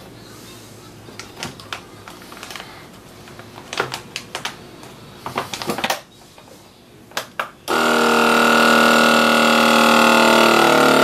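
Plastic vacuum bag rustling, with clicks as the lid of a countertop vacuum sealer is shut and pressed down. About three-quarters of the way through, the sealer's vacuum pump starts suddenly and runs with a loud, steady hum, drawing the air out of the bag.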